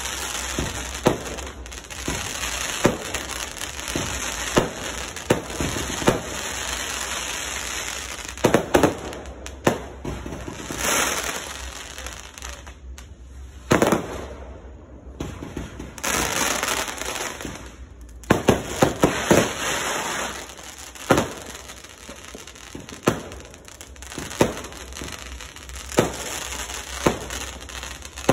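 Aerial fireworks bursting overhead: sharp bangs at irregular intervals with crackling and hissing between them. There is a short lull about halfway through, then a quick cluster of bangs about two thirds of the way in.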